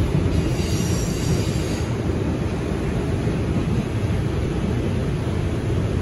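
Inside a moving R142 subway car: steady low rumble of the wheels and running gear on the track. Faint high-pitched squeal from the wheels fades out about two seconds in.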